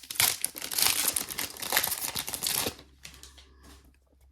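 Trading-card pack wrapper crinkling as it is torn open, a dense crackle lasting about two and a half seconds before it drops to quieter handling.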